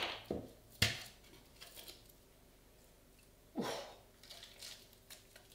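Glass jar of instant coffee being opened by hand: a couple of sharp clicks as the lid comes off, then faint crackling as the seal is pulled back. A short breath comes about halfway through.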